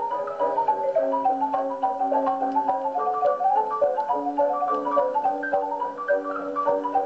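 Instrumental music soundtrack: a quick melody of short, clipped notes stepping up and down over held lower notes.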